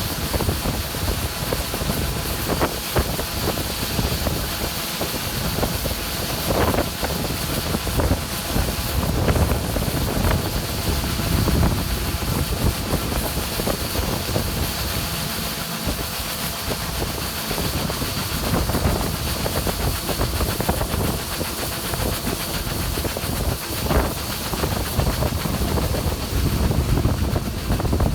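Farm machinery running steadily during soybean harvest: a low rumble and hiss with a thin, steady high whine over it, and a few sharp knocks along the way.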